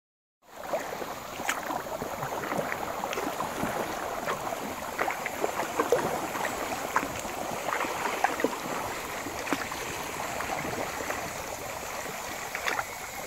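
Kayak paddling on a calm river: a steady wash of moving water with irregular small splashes and drips from paddle blades, starting about half a second in.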